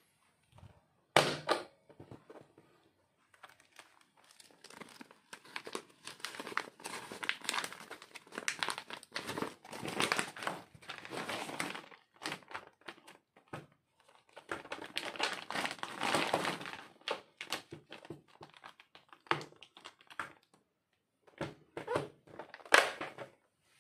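Plastic vacuum-sealer bag crinkling as it is handled and fed into a Silvercrest vacuum sealer, with sharp clicks of the sealer's lid, one about a second in and a loud one near the end as the lid is snapped shut.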